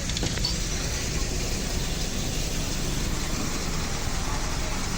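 Diesel engine of a Mercedes-Benz OF-1722M city bus running steadily, a constant low rumble with no change in pitch.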